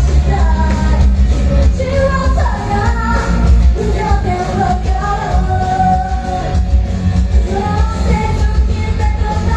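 Live pop-rock band performance: a vocalist singing a melody over loud bass, drums and guitars, heard with the sound of a large room.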